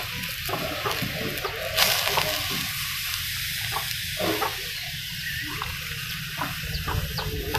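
Wet sunsunia (water clover) leaves sizzling in a hot wok over a wood fire: a steady hiss with a few small crackles.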